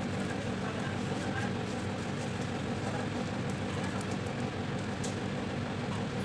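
Steady low mechanical hum, even in level throughout, with faint scattered ticks.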